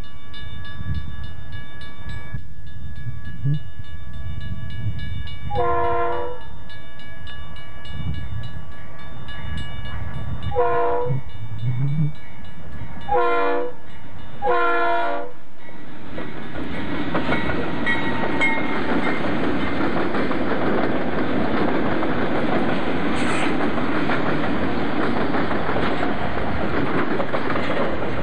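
Santa Fe diesel freight locomotives approaching and passing with their engines rumbling, sounding the air horn in four short blasts spread over the first half. Then the double-stack container cars roll by with a steady noise of wheels on rail.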